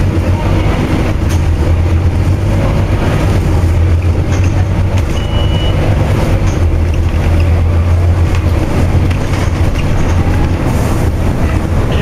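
Scania OmniCity double-decker bus heard from inside the passenger saloon while under way: the steady low drone of its diesel engine and drivetrain with road noise. A short high beep sounds about five seconds in.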